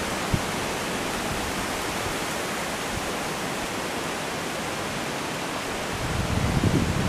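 Steady rushing noise of flowing river water, with a low rumble building up about six seconds in.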